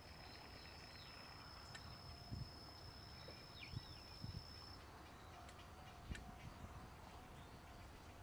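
Near silence: faint rural outdoor ambience with a couple of short bird chirps and a thin, steady high-pitched tone through the first half. A few faint low bumps are heard.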